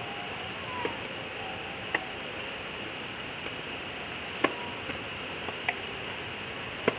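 Steady background hiss with a handful of short, sharp clicks at irregular intervals, the loudest about four and a half seconds in and again near the end.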